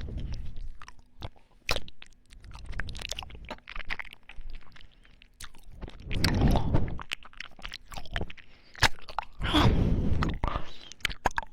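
Close-miked ASMR mouth sounds: many small, sharp wet clicks and crackles, with two louder, longer stretches about six and ten seconds in.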